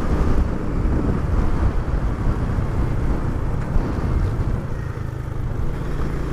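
Motorcycle engine running while riding, with wind noise on the microphone. The engine note becomes steadier and a little quieter about five seconds in.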